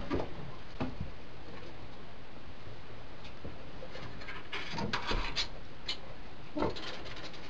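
Rustling and scattered light knocks from a person moving about and handling objects in a wooden shed, with a burst of rustling about two thirds of the way through.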